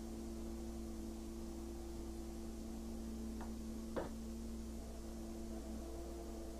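A steel punch being knocked into red-hot iron to make an eye: two short knocks, the clearer one about four seconds in, over a steady low hum.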